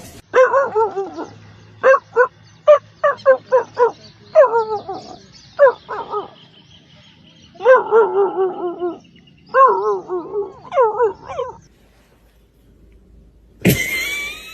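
A dog yipping in a run of short, high calls, then giving longer wavering whining calls. Near the end there is a short, different noisy sound with a high tone.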